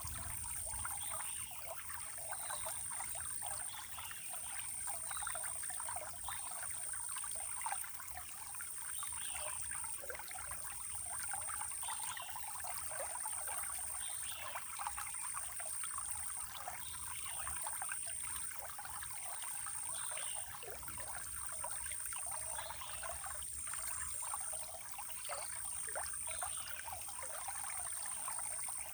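Water trickling and running steadily over stones, with short falling bird chirps every second or two and a steady high-pitched whine above it.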